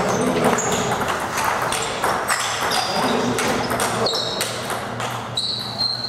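Table tennis balls clicking off bats and tables, with rallies at several tables overlapping into many irregular clicks, several a second. Brief high-pitched squeaks come and go among the clicks.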